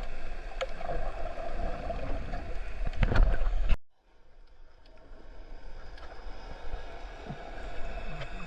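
Water and wind noise on an outdoor action-camera microphone, with a few sharp clicks. It cuts off suddenly a little under halfway, then a quieter, duller hiss of water slowly returns.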